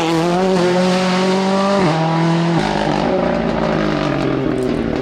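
Ford Fiesta R5 rally car's turbocharged 1.6-litre four-cylinder engine running hard. Its pitch holds steady, drops sharply twice about two seconds in, then falls gradually.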